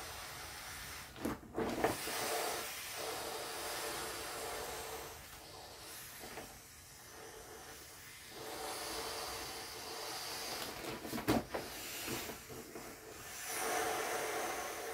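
Air rushing out of an inflatable vinyl bundle as it is pressed down and folded, with vinyl rubbing and a few sharp crackles about a second and a half in and again near eleven seconds.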